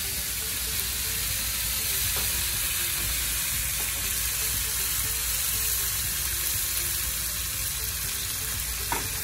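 Butter, garlic and chicken broth sizzling steadily in a small nonstick pan while a spatula stirs it. The spatula knocks lightly against the pan twice, about two seconds in and near the end.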